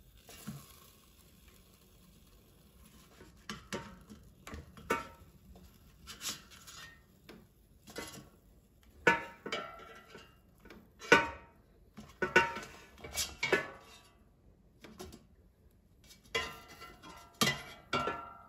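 A spatula scraping and knocking against a metal air fryer basket as cooking turkey cutlets are flipped over: irregular clatters and scrapes, some with a brief metallic ring, the loudest knock about eleven seconds in.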